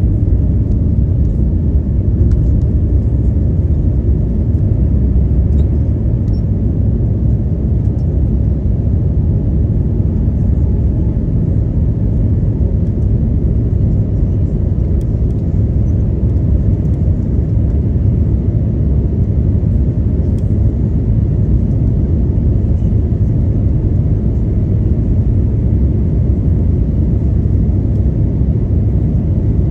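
Steady low rumble of engine and airflow noise inside the cabin of an Airbus A320neo climbing after takeoff, heard from a window seat over the wing.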